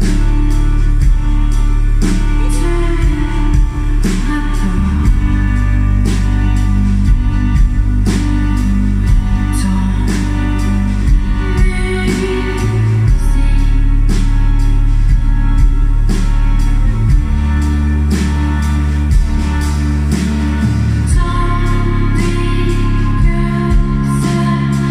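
Live band music: a woman singing over keyboards, electric guitar and drums, with sustained low bass notes that shift every few seconds.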